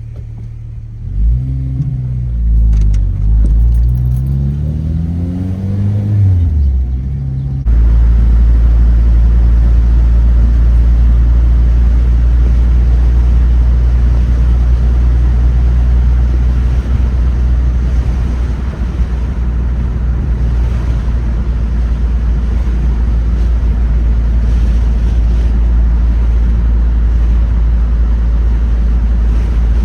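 2006 Honda Civic Si's 2.0-litre four-cylinder pulling through the gears, its pitch climbing and then dropping at each shift. About eight seconds in this gives way suddenly to a steady low rumble of engine and road noise at cruising speed.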